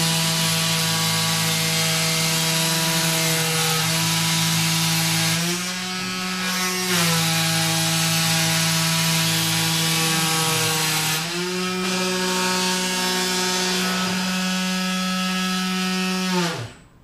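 Spindle motor of a DIY benchtop CNC machine running steadily while cutting 5 mm foam-board, a hum that steps up in pitch about five seconds in and again about eleven seconds in. Near the end it winds down with a falling pitch and stops as the power is switched off.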